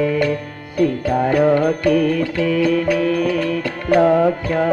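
Traditional Odia music for a Ravana Chhaya shadow-puppet play. A held melody bends in pitch now and then over a steady beat of sharp percussion strokes.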